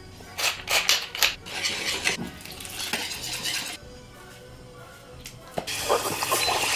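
A utensil clinks and scrapes against a bowl as flour and paprika are mixed for breading, with a few sharp taps in the first second or so. Softer handling sounds follow as the fish is dredged and dipped in batter.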